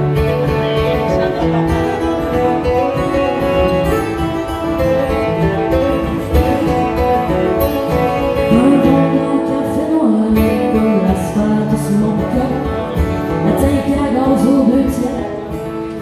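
Two acoustic guitars strummed together in a lively country-folk tune, played live.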